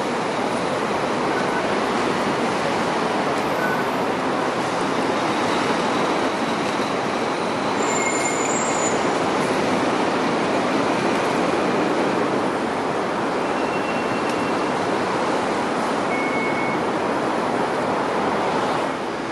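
Steady traffic and rail noise as a Hong Kong Light Rail car runs past, a little louder around the middle, with a few short faint high squeals.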